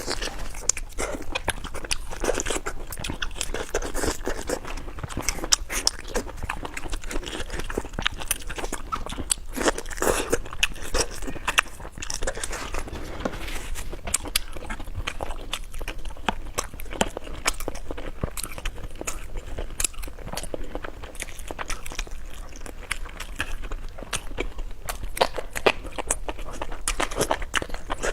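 Close-miked eating sounds: a person biting and chewing crunchy food, with a dense run of sharp crackles.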